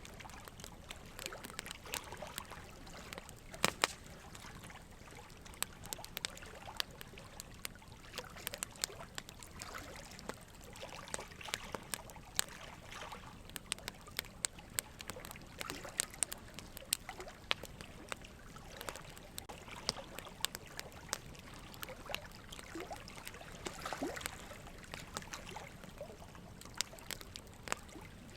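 Steady soft hiss peppered with many small irregular clicks and crackles.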